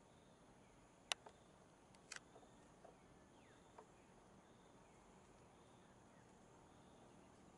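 Near silence: faint outdoor ambience with a steady faint insect hum, broken by a few sharp clicks. The loudest click comes about a second in and a double click about two seconds in.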